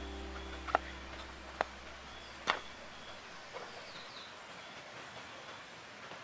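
Knife cutting mushrooms on a small wooden board: three sharp taps, about one a second, then fainter cuts, with a bird chirping faintly. Background music fades out at the start.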